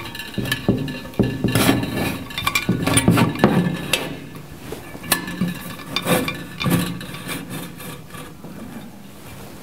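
Stainless steel UV water-sterilizer chamber being slid down through its loosened metal mounting clamps against a plywood board: an irregular run of metal clinks and knocks with scraping and rubbing between them.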